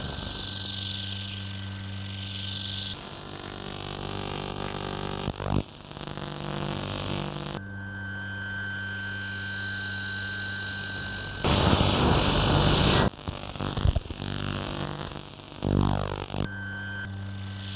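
Droning experimental soundtrack: a steady low hum with a thin high tone above it, switching abruptly from section to section. A loud hiss lasts about a second and a half past the middle, and falling sweeps follow near the end.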